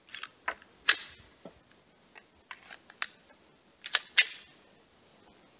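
Sharp metallic clicks and clacks of a Glock 21 .45 pistol being handled between shots, as the shooter deals with a magazine that keeps slipping loose. About nine clicks come at uneven spacing, with louder clacks about a second in and just after four seconds.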